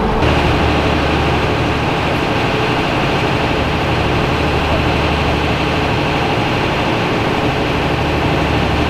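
Steady drone of an airfield ground power unit's engine running at constant speed, a low hum with a fainter high whine above it. It starts abruptly just after the opening.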